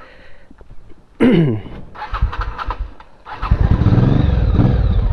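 A Honda Shadow motorcycle's V-twin engine being started. After a short loud burst just over a second in and some weaker pulsing, it catches about three and a half seconds in and runs with a steady, pulsing rumble.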